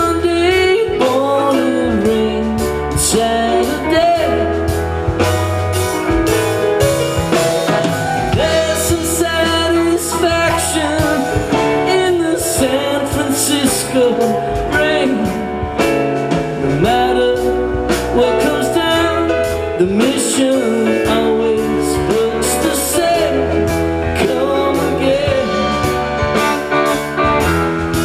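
Live rock band playing a slow song: electric guitars, bass, keyboards and drums, with a lead line of sliding, bending notes over a steady beat.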